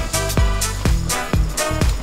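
Background music with a steady drum beat, a little over two beats a second.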